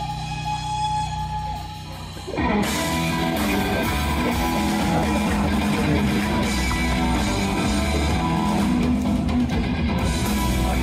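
Live rock band playing: electric guitars, bass and drum kit. A quieter passage of held notes gives way about two seconds in to the full band coming in loud.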